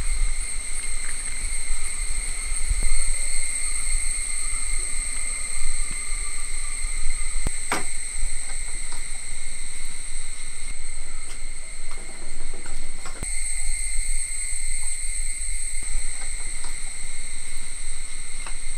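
Steady high-pitched insect trilling over a low rumble, with a sharp click about eight seconds in and another about thirteen seconds in.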